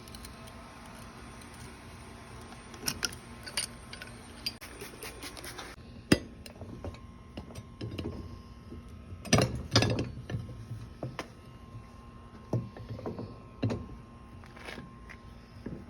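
Irregular metal clinks and knocks from working a small tire on its rim at a makeshift tire-changing mount. A sharp clank comes about six seconds in, and a cluster of heavier knocks a little past the middle.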